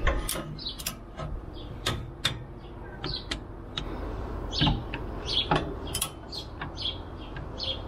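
Irregular metal clicks and knocks of hand tools working on the differential-brace bolts, with small birds chirping in short high notes, busier in the second half.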